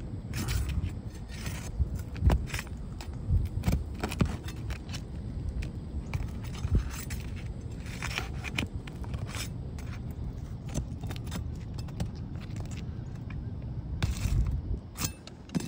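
Flat steel pry bar worked under asphalt shingle tabs: irregular metal scrapes and clicks as the shingles' seal strips are broken loose.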